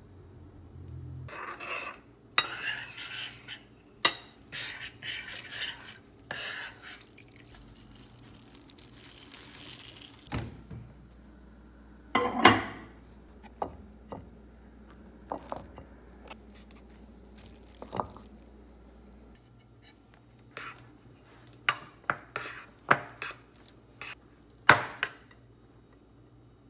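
Spoon and bowl clinking and scraping while ingredients are combined and stirred: rough scraping stretches in the first few seconds, then many separate sharp clinks.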